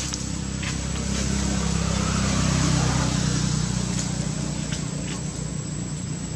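Low engine rumble of a passing motor vehicle, swelling to its loudest about halfway through and then fading. A steady high, thin tone runs under it, with a few faint ticks.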